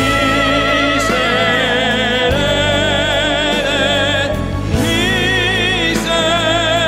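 Pop-opera duet singing by a tenor and a soprano over a backing track: long held notes with a strong vibrato, a brief break about four seconds in, then the next held note.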